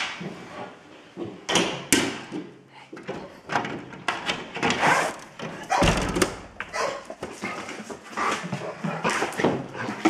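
A busy run of irregular knocks, thumps and rustles, with a brief low rumble about six seconds in.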